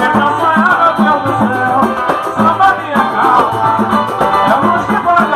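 Live pagode samba band playing: percussion keeps a steady beat about twice a second under melodic lines.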